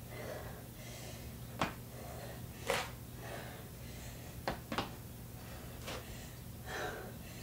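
A person breathing hard in short puffs while doing crab dips, with a few sharp clicks, two of them close together about four and a half seconds in.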